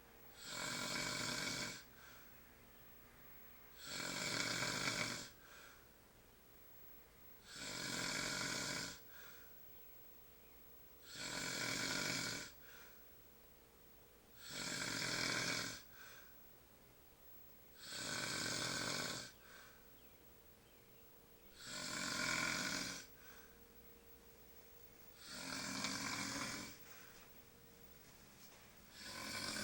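A sleeping man snoring in a steady rhythm: one snore on each breath, about every three and a half seconds, each lasting about a second and a half, with quiet breaths between.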